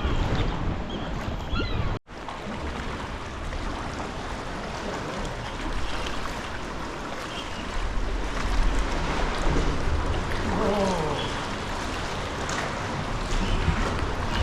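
Sea water sloshing and washing around a kayak under cliffs, with wind buffeting the microphone. Short bird calls sound over it in the first two seconds, and the sound cuts out for an instant about two seconds in.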